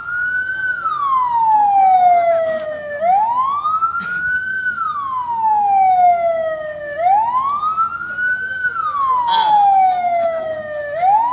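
Ambulance siren sounding a slow wail: each cycle rises quickly in pitch, then falls slowly for about three seconds, repeating about every four seconds.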